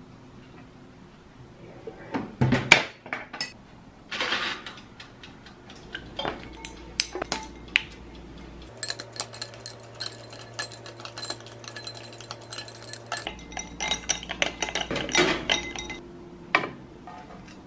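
A string of kitchen clatter: knocks and clunks as toast goes onto a toaster-oven's metal tray and the oven is shut, the loudest about two to three seconds in; a dense run of small clinks from ice in a glass of water in the middle; then the metal tray clanking against a ceramic plate near the end.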